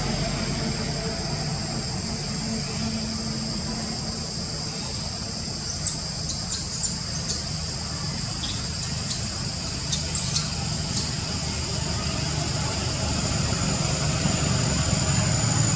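Steady high drone of insects over a low engine rumble that grows louder toward the end. In the middle come about a dozen short, high squeaks, each sliding down in pitch.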